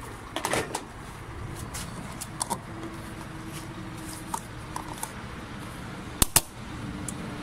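Refuelling handling noises: the pump nozzle put back, then the plastic fuel cap of a UAZ Patriot screwed onto the filler neck. Scattered small clicks and knocks, with two sharp clicks close together about six seconds in.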